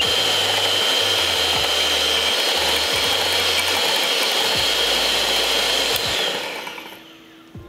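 Electric hand mixer whipping cream in a glass bowl, its motor running at speed with a steady high whine. About six seconds in it winds down and stops as the cream reaches stiff peaks.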